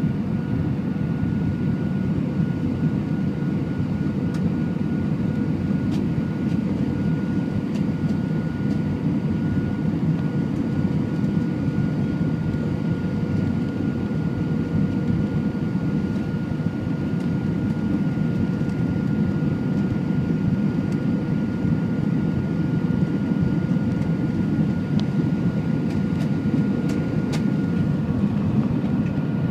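Steady cabin noise of a jet airliner on approach, heard from a seat over the wing: a dense, low rush of engine and airflow noise with a faint steady whine on top. A few faint ticks come near the end.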